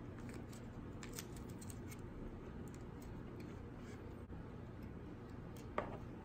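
Light clicks and ticks as the circuit board and small parts are handled on a work mat, with one sharper knock near the end.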